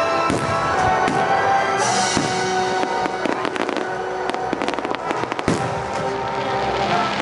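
Aerial fireworks shells bursting in a rapid run of sharp reports, densest about three to four seconds in, with a strong single bang about five and a half seconds in.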